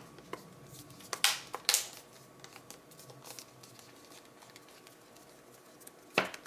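Plastic back cover of a Samsung Galaxy Tab Active2 being pressed back onto the tablet around its edges. It gives a few sharp clicks as it snaps into place, two about a second and a half in and one near the end. This is the cover seating so that its waterproof seal closes.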